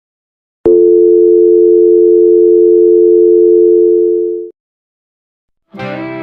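Telephone dial tone: a steady two-note hum held for about four seconds, opening with a click and cutting off suddenly. Guitar music starts just before the end.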